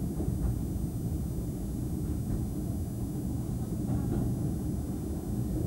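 Steady low rumble of a moving vehicle heard from inside the passenger compartment, with faint voices in the background.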